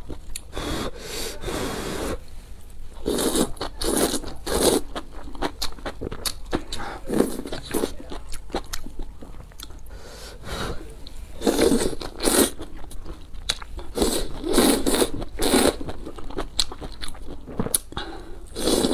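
Close-miked eating: noodles slurped up from spicy soup in several runs of quick wet sucks, with chewing in between.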